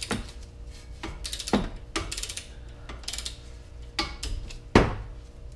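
Socket ratchet clicking in short runs on the front brake caliper bolts, with scattered metal clicks and knocks. The sharpest knock comes near the end.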